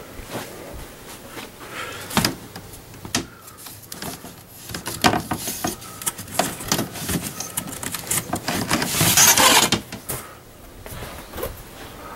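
Rummaging through household clutter by hand: scattered knocks, clicks and bumps of objects being shifted, with a louder stretch of rustling and scraping about nine seconds in.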